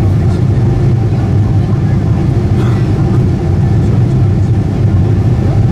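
Steady low rumble of engine and airflow noise heard inside the cabin of a Boeing 747-8i airliner on final approach, from its GEnx-2B turbofans and the air rushing over the airframe.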